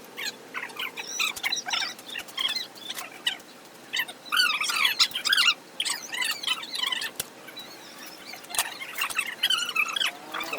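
Birds chirping: rapid, high twittering calls, thickest about halfway through, with a few sharp clicks in between.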